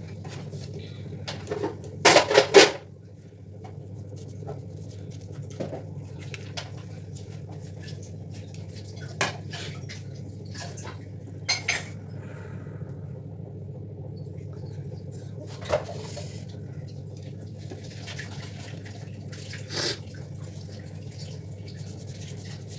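Plates and cutlery being handled: scattered clinks and knocks, the loudest a short clatter about two seconds in, over a steady low hum.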